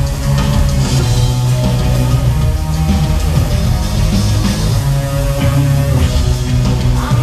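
A live rock band playing loudly over an arena PA, heard from the audience seats: heavy sustained bass, drums and guitar.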